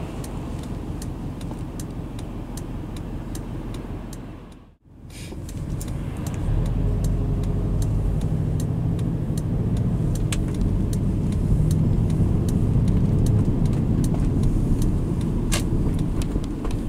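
A 2002 Subaru Legacy Blitzen's flat-four boxer engine heard inside the cabin, running low at a standstill, then pulling away with a louder, deeper drone from about six seconds in. The sound drops out briefly just before the car moves off, and faint regular ticks run through the background.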